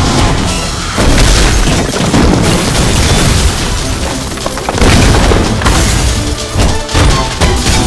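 Action film soundtrack: dramatic score under a string of heavy booms and crashes, the sound effects of bodies smashing through a glass building facade and debris flying.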